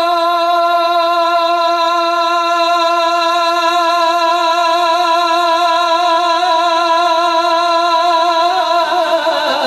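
A reciter's solo voice holding one long, high note with a slight waver in melodic Islamic chanting; near the end it lifts and breaks into a rising and falling ornamented phrase.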